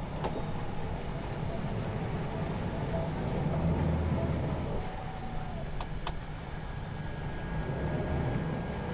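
Twin outboard motors on a center-console boat running with a low rumble, throttling up about three to four seconds in as the boat is power-loaded onto a trailer.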